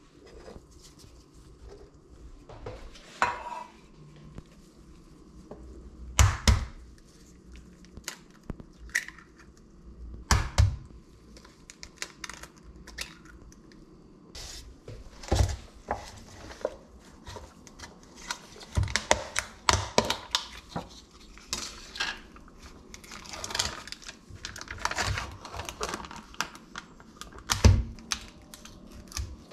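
Kitchen handling sounds: dishes and containers knocked down on a countertop and eggs cracked into a dish. Sharp knocks come every few seconds, with quieter rustling and clicking between, busiest in the second half.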